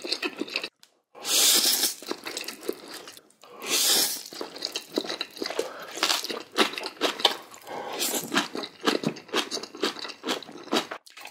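Close-miked eating: two loud noisy bursts about a second in and about four seconds in, then dense crunching and chewing.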